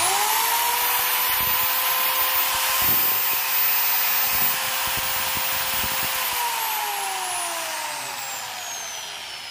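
Newbeat 125 mm (5-inch) marble cutter running with no load. The motor's whine climbs quickly to a steady high pitch, then about six seconds in falls steadily in pitch and fades as the motor coasts down.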